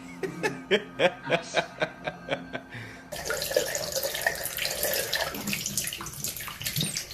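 A quick run of about ten short, sharp pitched calls, roughly four a second, then from about three seconds in a steady rush of running, splashing water.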